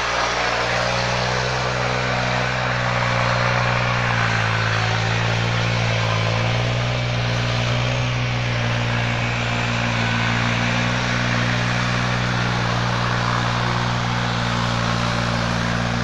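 An engine running steadily at a constant speed, its note shifting slightly in pitch now and then.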